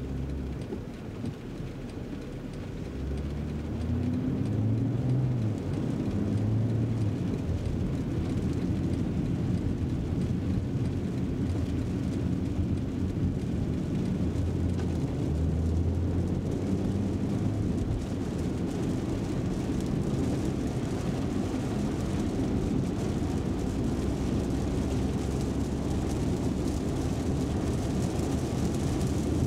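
BMW M340i Touring's 3.0-litre straight-six heard from inside the cabin, pulling away from a standstill and accelerating to about 80 km/h, with tyre hiss on the wet road and rain noise growing as speed builds.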